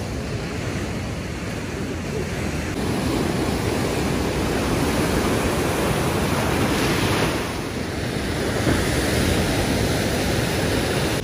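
Rough sea surf breaking and washing over a rocky, pebbly shore, a steady rush of churning water that swells as bigger waves crash in, about three seconds in and again near the end.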